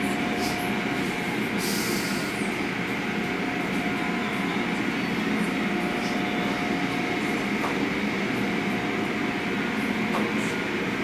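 Automatic tunnel car wash equipment running, heard from inside a car's cabin: a steady rumble of machinery with water spraying and splashing against the car, and a brief louder hiss of spray about two seconds in.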